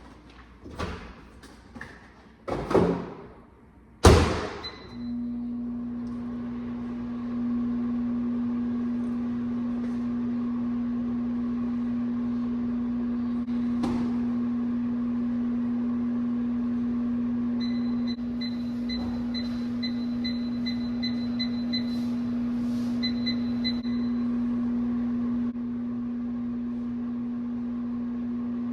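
A few handling knocks, then a door thuds shut and a microwave oven runs with a steady low hum. Faint rapid high pips come through partway in.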